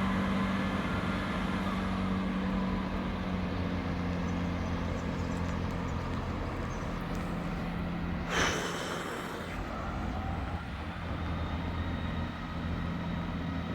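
Class 158 diesel multiple unit's underfloor diesel engines running steadily as it pulls out of the station, with a brief hiss about eight seconds in.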